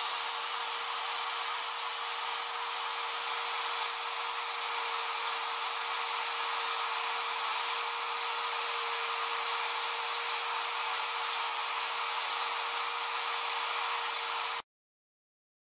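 Porter-Cable router spindle on a homemade CNC machine running steadily at speed with a constant high whine, its bit not yet in the plywood. The sound cuts off abruptly near the end.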